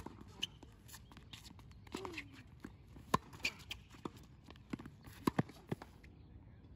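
Tennis rally on a hard court: sharp pops of the ball off strings, with one on a forehand at the start, and knocks of the ball bouncing, scattered irregularly, with footsteps of the players running between.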